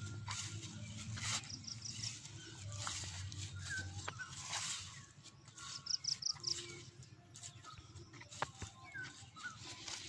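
Birds calling: a quick run of four short, high notes, repeated about four seconds later, with scattered lower chirps between. A low hum sits under the first few seconds.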